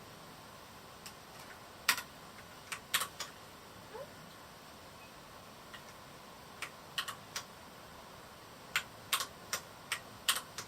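Varmilo Miya68 mechanical keyboard with Cherry MX Red switches being typed on: sparse, sharp keystrokes in small irregular clusters with pauses of a second or more between them.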